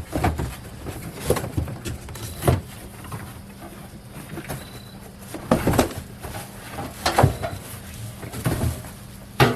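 Irregular knocks, clunks and rustling of grill parts and packaging being handled, loudest around the middle and just before the end.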